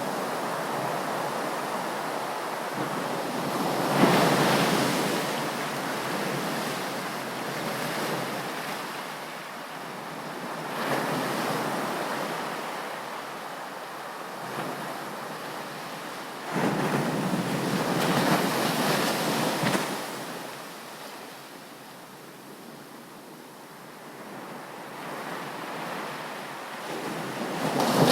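Ocean surf breaking on a beach and washing up the shore, swelling and falling away every several seconds. The loudest breaks come about four seconds in and again near the end.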